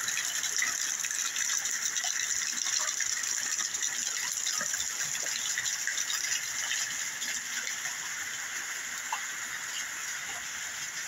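Steady rain falling: a continuous hiss with many scattered drops tapping.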